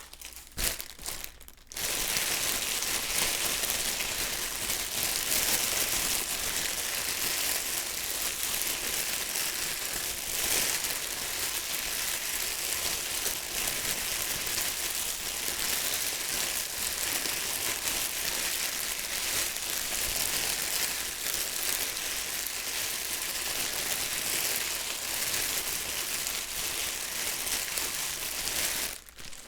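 Plastic bag crinkling: a few short crackles at first, then about half a minute of dense, continuous crinkling and crumpling that stops near the end.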